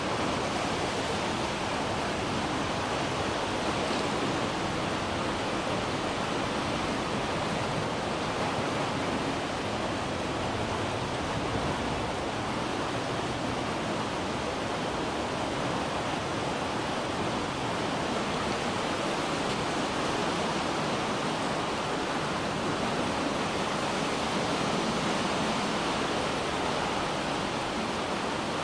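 Floodwater rushing down a creek in spate, a steady, unbroken rush of water.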